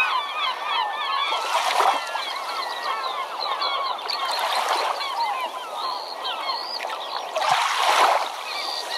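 A flock of birds calling and chattering without a break, over three splashing oar strokes about three seconds apart as a small dinghy is rowed.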